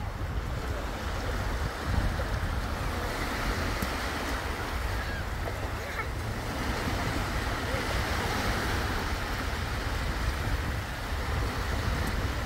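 Small sea waves breaking and washing through the shallows at the shoreline, a steady surf hiss, with wind rumbling on the microphone.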